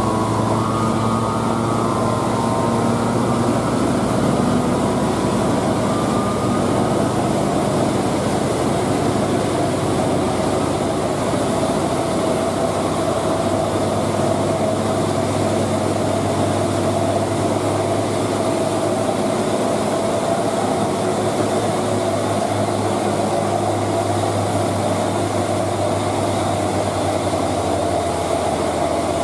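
Steady heavy drone of Hino 500 dump trucks' diesel engines running hard side by side, with a steady whine that comes in about twelve seconds in and holds.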